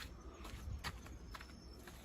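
Footsteps of someone walking: about four short, sharp steps roughly half a second apart, over a faint low rumble.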